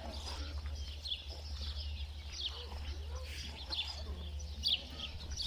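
Small birds chirping: many short, high chirps that fall in pitch, repeated throughout, over a steady low hum.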